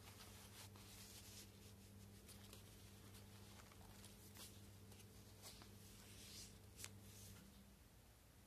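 Faint rustling and soft ticks of paper pages and cards being handled and turned in a handmade journal, over a low steady hum that stops near the end.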